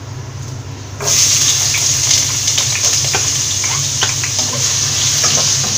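Chopped ginger and garlic hitting hot oil with whole spices, bursting into a steady sizzle about a second in, with light taps and scrapes of a wooden spatula stirring in a nonstick pan.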